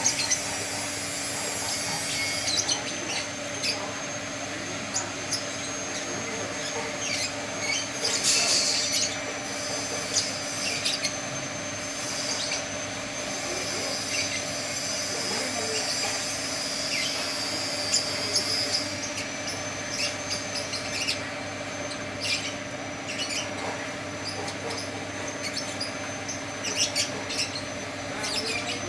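Coconut coir rope spinning machine running: a steady mechanical hum with a high, thin whine, broken by frequent short squeaks and clicks.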